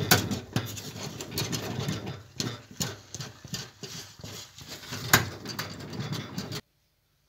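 Wooden spoon stirring thick cornmeal polenta (mămăligă) in a small metal pot, knocking and scraping against the pot in irregular strokes over a low steady rumble. The polenta is being worked until it comes away from the sides of the pot. The sound cuts off suddenly near the end.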